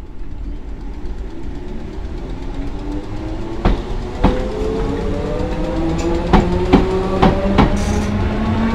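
Merseyrail electric multiple unit pulling away. The traction motor whine rises steadily in pitch as it accelerates, and the wheels click over rail joints more and more quickly from about four seconds in.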